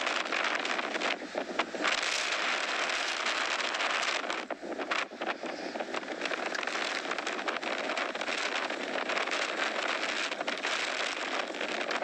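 Strong blizzard wind rushing and buffeting the microphone, a dense steady roar with brief lulls about four to five seconds in.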